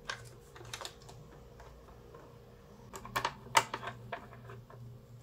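Scattered light clicks and taps of hands handling the plastic bobbin cover and parts of a Sew Simple mini sewing machine, with a cluster of sharper clicks about three seconds in, over a faint low hum.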